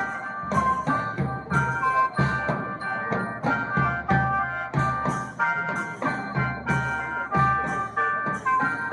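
Khaen band music: the sustained reedy chords of khaen mouth organs over a steady drum and percussion beat.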